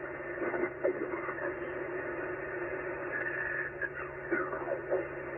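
Yaesu FT-891 transceiver's speaker on 40-metre sideband: receiver hiss with a garbled, off-frequency voice sliding in pitch, a station just above the frequency splattering onto it (QRM).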